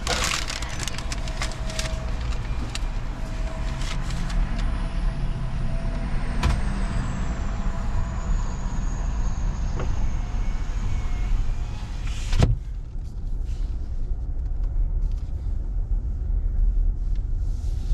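Car engine running, heard from inside the cabin, with scattered clicks and rustles in the first few seconds and a sharp knock about twelve seconds in, after which the sound turns duller.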